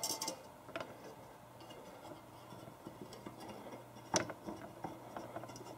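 Faint scraping and rubbing as a Wolf 22-pound pistol recoil spring is pressed down inside a PVC tube on a dial scale, with a small click about a second in and a sharper click about four seconds in.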